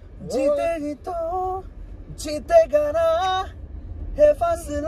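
Men singing a cappella inside a moving car, a wordless melodic line in about three short phrases with sliding pitch, over the low rumble of the car.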